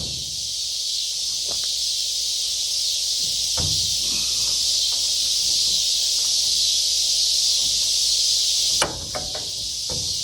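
Steady, high-pitched insect chorus that drops away abruptly near the end, with a couple of light knocks.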